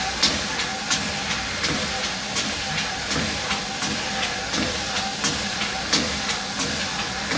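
Walking pad treadmill running, its motor and belt giving a steady hum and hiss, with footfalls striking the belt at a brisk walking pace, close to three steps a second.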